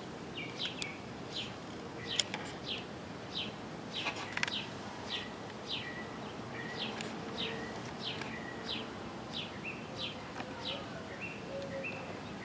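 A bird calling over and over with short down-slurred chirps, about two a second, over a steady outdoor hiss. A couple of sharp clicks come about two and four and a half seconds in.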